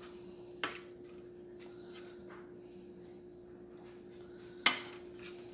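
Metal tongs clicking against a metal cookie sheet while picking up cooked bacon: a light click about half a second in and a sharper, louder one near the end. A steady low hum runs underneath.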